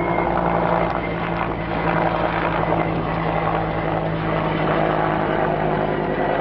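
Propeller engines of a twin-engine air tanker flying low overhead, a steady drone.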